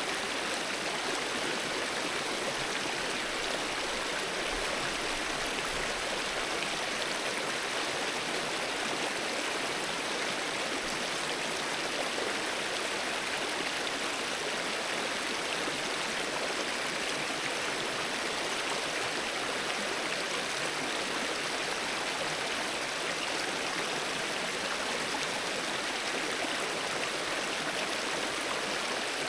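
Alpine mountain river flowing steadily over rocks, an even rushing sound without a break.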